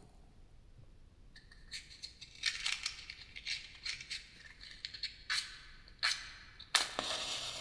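Close-up ASMR handling sounds: a run of crisp clicks, crackles and scrapes, with a longer rustling burst near the end.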